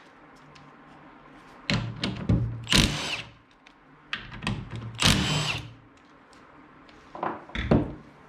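Power driver with a 14 mm socket spinning out two seat bolts, one after the other, each run ending in a rising whine as the bolt frees. A few sharp clicks follow near the end.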